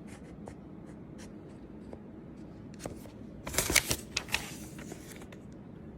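Handling of the laptop's box packaging: scattered small clicks and taps, with a louder burst of rustling and scraping about three and a half seconds in.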